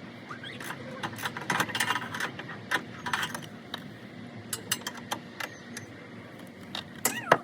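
Metal tools and parts clinking and clattering in irregular sharp clicks while work is done on the car's suspension.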